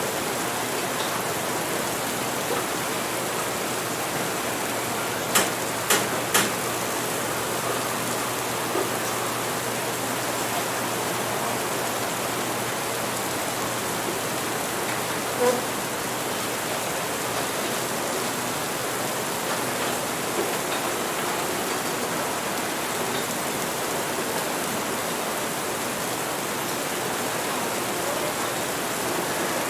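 Steady rain falling as an even, constant hiss. About five to six seconds in, three sharp clinks come in quick succession.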